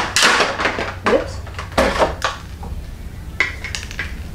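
Clear plastic packaging crinkling and crackling in several short spells as a small vinyl figure is worked out of it by hand.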